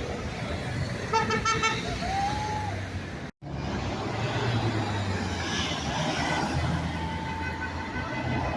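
Passing road traffic with car horns honking: a quick run of short toots about a second in and a longer honk near the end. Engines and tyres run underneath, and the sound cuts out for a moment about a third of the way through.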